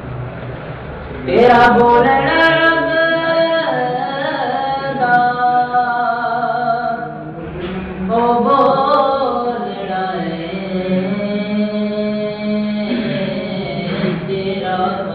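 A voice singing long held notes that slide in pitch. It comes in about a second in and breaks off briefly around the middle.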